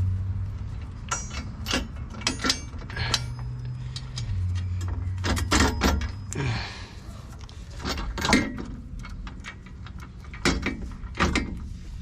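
Irregular metal clinks and knocks from handling an aftermarket rear sway bar and its bolts, washers and brackets under a car, with a low rumble underneath that stops about halfway.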